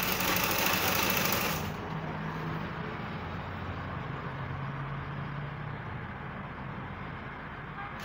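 Treadle sewing machine stitching steadily, a continuous mechanical clatter that is louder for the first second and a half or so, then settles to an even run as the zipper seam is sewn.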